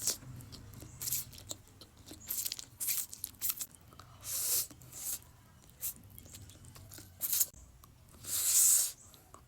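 Close-up eating of Mama instant noodles: a string of short, sharp, hissy mouth and bite sounds every second or so, the longest and loudest near the end.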